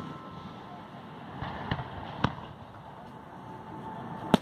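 Aerial firework shells bursting: a few sharp bangs at irregular spacing, the loudest near the end.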